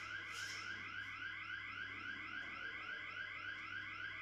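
Warning sounder on a closing automatic safety door: a rapid, even train of short rising whoops, about five a second.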